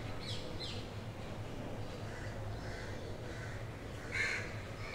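Chopped onion and garlic sizzling softly in hot oil in a kadhai. A bird gives one short, louder call about four seconds in, with a few faint chirps near the start.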